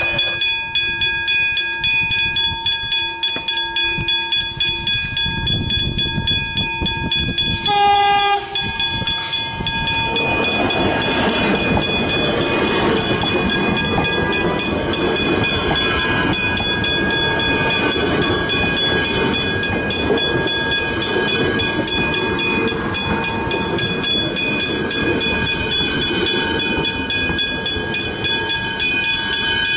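Westinghouse Hybrid level-crossing bells ringing in fast, even strikes. About eight seconds in, a train horn gives a short blast. From about ten seconds, an electric suburban train runs past close by, its wheels and motors rumbling under the bells.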